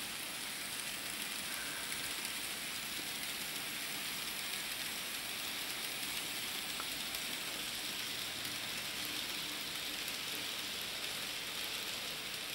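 N-scale model train, two diesel locomotives pulling a string of covered hopper cars, running steadily along the track: an even, hiss-like whir of the motors and the wheels on the rails.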